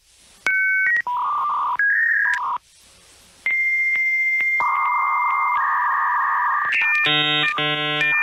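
Electronic telephone-line tones like a dial-up modem connecting: short beeps, a steady high tone, hissing static, and a harsh buzz near the end, dubbed over the cat's open mouth.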